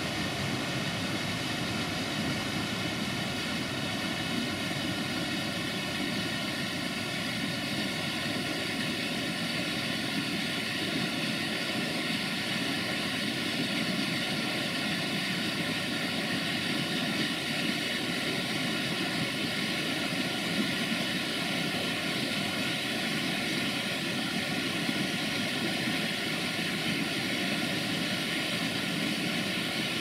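Waterfall pouring steadily down a mossy rock face into a pool: a constant, even rush of falling and splashing water.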